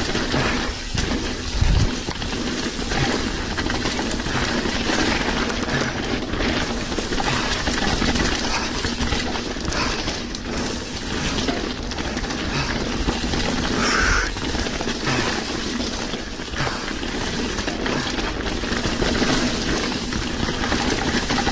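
Mountain bike riding down a rough trail: continuous rattling and clattering of the bike and its tyres over stones and roots, with many small knocks and steady noise.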